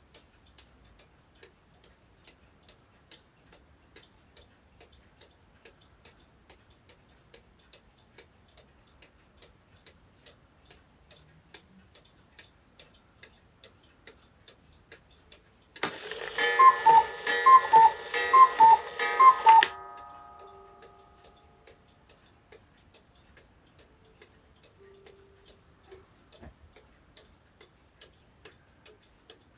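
Vintage cuckoo clock ticking steadily, about one and a half ticks a second. About sixteen seconds in it calls cuckoo four times, each call two notes, high then lower, over a loud rushing noise, then the sound dies away and the ticking carries on.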